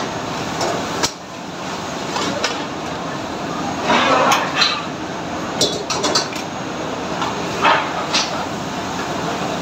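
A steel ladle and a small steel plate clank and scrape against a large steel pan as a curry is stirred. There are several sharp knocks between about four and eight seconds in. Underneath is the steady roar of a commercial kitchen range and extraction hood.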